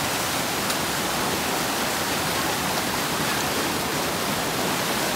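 Water in a fast-flowing stream rushing steadily, with no let-up.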